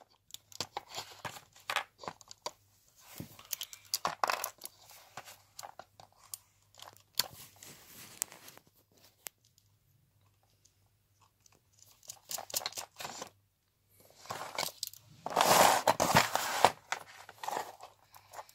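Close handling noise of e-bike wiring: rustling and small clicks as fingers work wires into a plastic screw terminal block. The sounds stop for a couple of seconds around the middle, and a louder stretch of rustling comes about fifteen seconds in.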